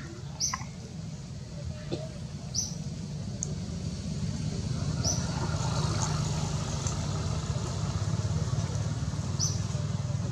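Low, steady hum of a motor vehicle's engine, growing louder from about four seconds in, with a few short high chirps scattered through.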